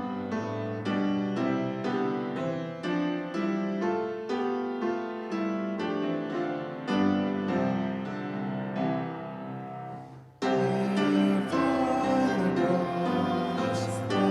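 Piano music with a steady pulse of struck notes and chords. About ten seconds in it fades, breaks off abruptly, and gives way to a louder, fuller passage of music.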